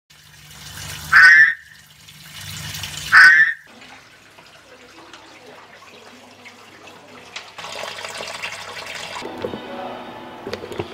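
Horned frog (pacman frog) calling twice, about two seconds apart: each call swells from a low pulsing croak into a short, loud squawk that stops abruptly. A short stretch of hiss follows later.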